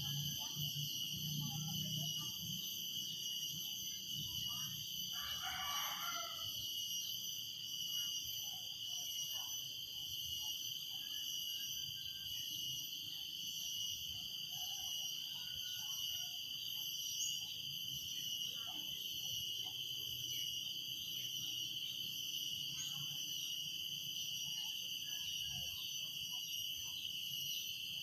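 Cicadas singing in a steady, high-pitched drone, with a rooster crowing once about six seconds in and faint scattered bird chirps.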